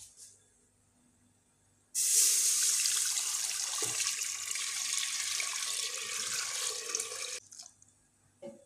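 Palm fruit extract (banga juice) poured in a thick stream from a bowl into an empty metal pot, splashing steadily. The pour starts suddenly about two seconds in and stops abruptly about five seconds later.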